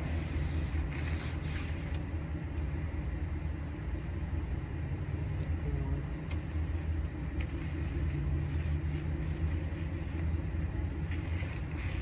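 Steady low machinery rumble with a constant hum, unbroken throughout.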